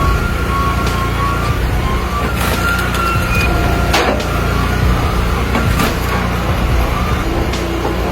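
Engine of a firewood splitting machine running steadily, with a few sharp knocks, the clearest about four and six seconds in.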